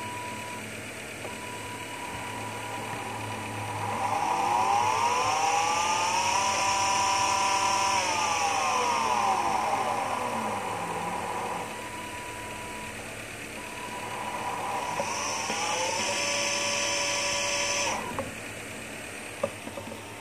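A 775 brushed DC motor driven by a brushed ESC, its speed set by a servo-tester knob. A steady high tone sounds at first. About 4 s in the motor spins up with a rising whine, holds at speed, then winds down over about three seconds. It spins up again about 14 s in, holds at a high whine, and cuts off sharply near the end.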